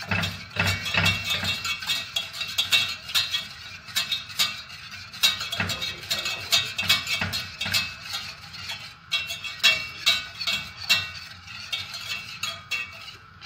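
Wire whisk stirring a custard mixture in a stainless steel saucepan, its wires clinking and scraping against the pan in rapid, irregular strokes.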